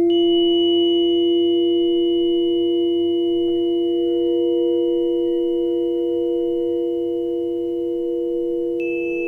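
Several steady, pure tones held together in a layered chord, the strongest a low hum-like tone with higher tones above it. A new high tone comes in at the start, another shift comes about three and a half seconds in and again shortly before the end, while the whole sound slowly fades.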